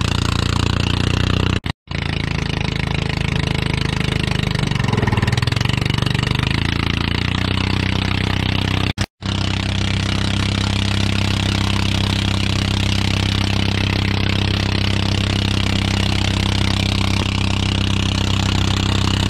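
Outrigger boat's engine running steadily at speed under a loud rush of water spray and wind. The engine note wavers around the fifth second, and the sound cuts out briefly twice, about two seconds in and about nine seconds in.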